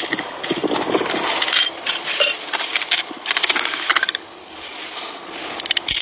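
Hands working an angle grinder and its metal discs in loose dirt: irregular scraping, clinks and clicks, busier for the first few seconds, then quieter, with a few sharp clicks near the end as a disc is changed. The grinder is not running.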